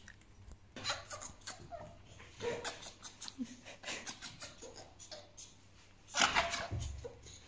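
Fennec fox making a string of short, harsh angry vocalisations, the loudest about six seconds in.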